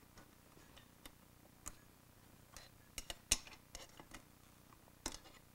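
Faint, irregular metallic clicks and taps of hand tools and small parts as throttle cables are fitted to a motorcycle carburetor; the sharpest click comes about three seconds in.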